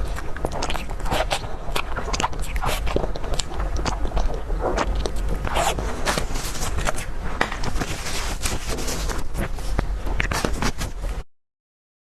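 Close-miked mukbang eating: a person biting and chewing dessert, with many sharp crackling clicks and scrapes over a steady low hum. The sound cuts out to dead silence for about a second near the end.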